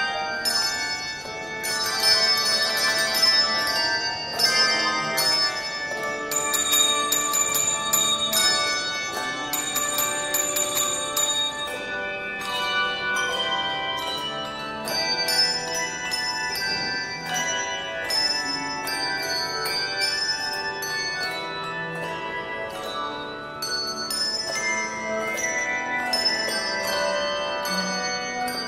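Handbell choir ringing a hymn-tune arrangement, many handbells struck together in chords and melody, each note ringing on.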